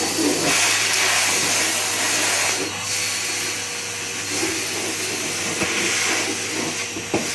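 Henry canister vacuum cleaner running steadily: a constant airy hiss of suction over a low motor hum.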